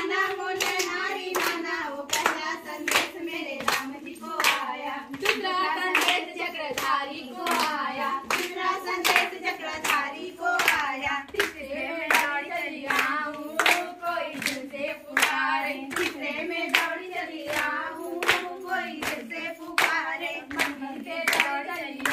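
Group of women singing a Chhattisgarhi Sua folk song together while clapping their hands on a steady beat, the unaccompanied singing and clapping of the Sua dance.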